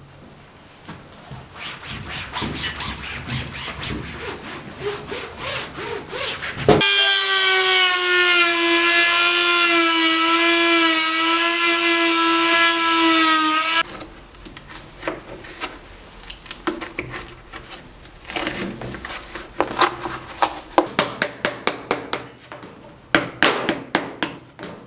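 Hand work on wood and old material: repeated rubbing or scraping strokes, then a small power tool runs with a steady, slightly falling whine for about seven seconds and stops suddenly, followed by more strokes that turn quick and sharp near the end.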